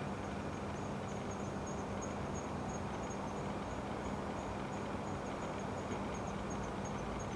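Insects chirping in short, high pulses that repeat unevenly, over a steady background hiss and a low hum.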